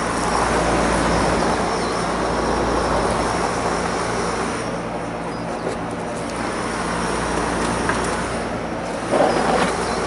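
Outdoor air-conditioning condensing unit running, its fan and compressor giving a steady whooshing noise with a low hum; the R-410A system is badly undercharged from a refrigerant leak. A brief louder rustle comes about nine seconds in.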